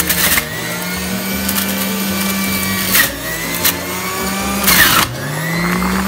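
Breville centrifugal juicer's motor running with a steady whine as it shreds green apple pieces, with several sharp crunches as the pieces hit the spinning cutter disc. After a longer crunch about five seconds in, the motor pitch dips and climbs back.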